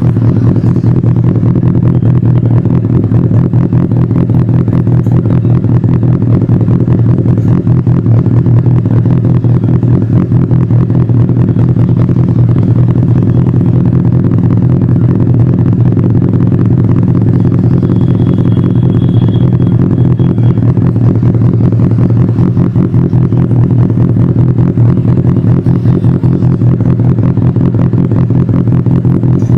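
Benelli TNT 600i's inline-four engine running steadily at idle, holding an even pitch without revving.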